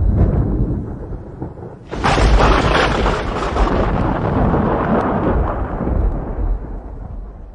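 Thunder: a low rumble fades, then about two seconds in a sudden sharp thunderclap breaks out and rolls on as a long rumble that slowly dies away.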